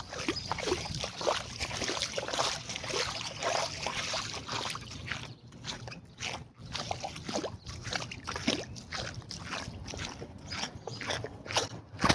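Shallow floodwater splashing and sloshing in a string of short, irregular splashes.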